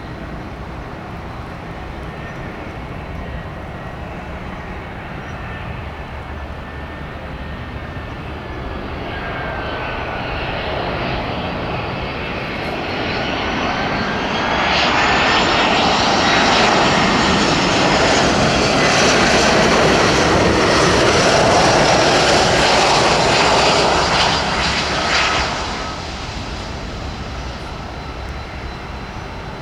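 Jet airliner passing close, its engine roar building over several seconds with a whine that dips and rises in pitch, loudest for about ten seconds in the middle, then falling away abruptly near the end.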